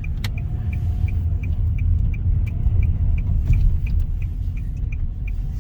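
Car running, heard from inside the cabin as a steady low rumble, with a faint, regular ticking about three times a second.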